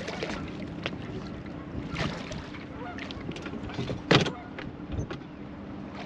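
Scattered knocks and clicks of handling on a fishing boat, over a steady low hum. The loudest is a sharp thump about four seconds in.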